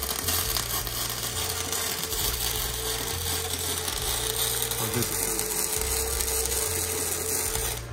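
Gasless flux-cored wire welding with an EENOUR MIG-140P semi-automatic (MIG) welder: the arc crackles and sizzles continuously, stopping just before the end, over a steady hum.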